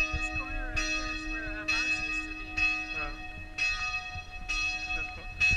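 A bell struck over and over, roughly once a second, each stroke ringing on with several steady tones.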